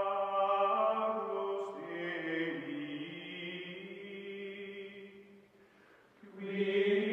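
Music of sustained, choir-like chanting: voices holding long, steady notes that shift lower about two seconds in, fade away around five seconds in, and swell back strongly near the end.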